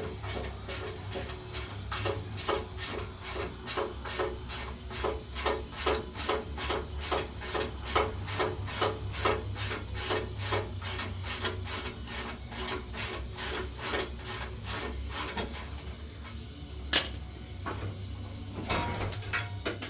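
Ratchet spanner being worked back and forth on a bull-bar mounting bolt, an even rasping ratchet stroke about two to three times a second. The strokes stop about 16 seconds in, followed by a single sharp click and a short rattle near the end.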